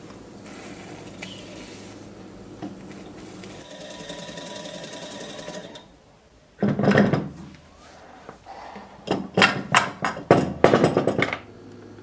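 Small homemade steam engine running fitfully: a steady hiss, then, a little past halfway, loud rapid mechanical chattering in short, uneven bursts, one and then a cluster of several near the end, as the unreliable engine catches and stalls.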